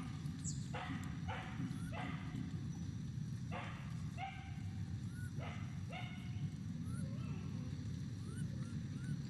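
Short animal calls, repeated in clusters of two or three about half a second apart, over a steady low rumble. Small faint rising chirps are heard between them.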